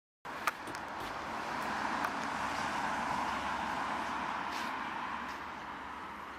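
A passing vehicle, its noise swelling to a peak about three seconds in and easing off, with a sharp click near the start.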